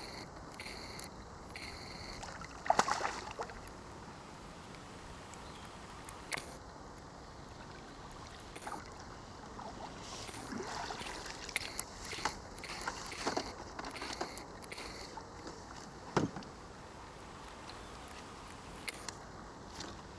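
Water sloshing and splashing, with a few sharper splashes or knocks; the loudest comes about three seconds in, and another cluster comes around the middle.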